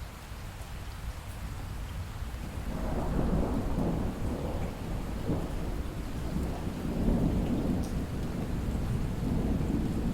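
Steady rain falling, with a long roll of thunder that swells about two and a half seconds in and keeps rumbling in waves to the end.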